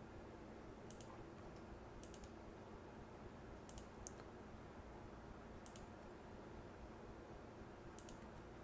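Faint clicks of a computer mouse and keyboard, about six of them spaced a second or two apart, some doubled as a button is pressed and released, over a low steady room hiss.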